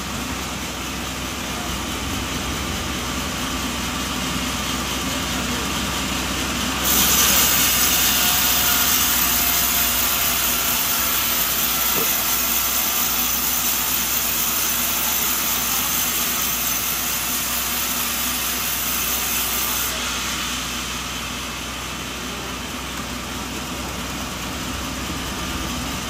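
Sawmill machinery running steadily. About seven seconds in, a loud hissing rasp of the saw blade cutting through a coconut log starts suddenly; it lasts about thirteen seconds and stops abruptly, leaving the machine running.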